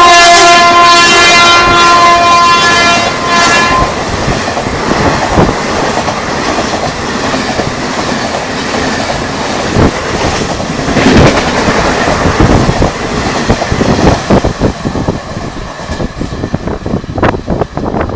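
WAP4 electric locomotive's horn holding a long blast that cuts off about four seconds in. Then the express train rushes past at speed, its wheels clattering over the rail joints, thinning out near the end.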